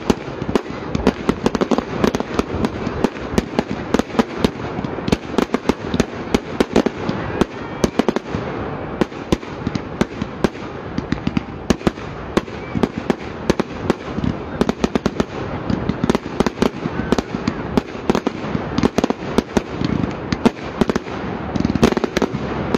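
Fireworks display: a continuous barrage of cracks and bangs, several a second, from multi-shot cakes firing from the ground and shells bursting overhead.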